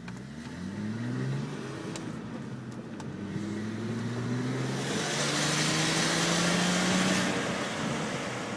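Audi B5 S4's twin-turbo 2.7-litre V6 accelerating under load through the gears. The engine pitch climbs, drops at a shift about a second and a half in, climbs again, shifts once more near three seconds, then makes a longer pull with a loud hiss over the middle of it. The car's owner suspects a failing turbo.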